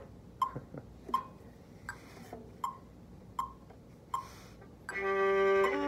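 A metronome ticking steadily, about 80 beats a minute, each tick a click with a short high ping. About five seconds in, a violin comes in with long bowed notes, changing note shortly before the end.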